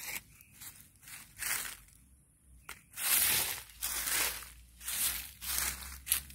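A hand scratching and raking through dry fallen leaves on the ground: an irregular run of short rustling, crunching strokes, loudest about three seconds in.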